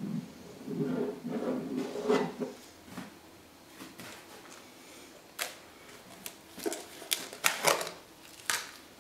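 White acrylic paint being squeezed out of a plastic bottle onto a canvas in an uneven sputter, followed by a series of sharp clicks and taps as paint bottles and their caps are handled.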